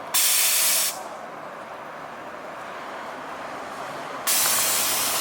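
Car air-ride suspension valves passing air into or out of the air bags. A sharp hiss switches on for under a second at the start, and another steady hiss cuts in about four seconds in.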